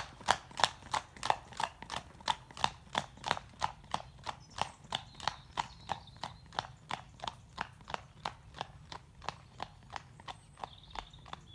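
A cob's hooves clip-clopping at a walk on a tarmac road, an even beat of about three hoofbeats a second that grows fainter as the horse moves away.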